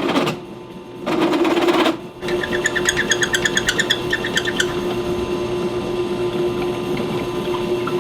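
Electric drill boring a 5/8-inch hole through steel after a 1/2-inch pilot. It starts with a short burst of cutting noise, then runs steadily, with a fast rhythmic chatter of the bit for about two seconds.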